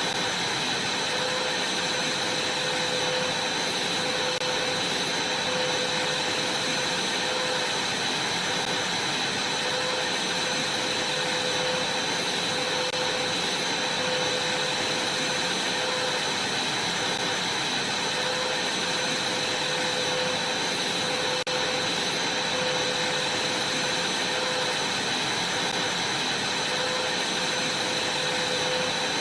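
Vacuum cleaner running steadily: an even rushing hiss with a constant high motor whine, and a fainter lower tone that pulses every second or two.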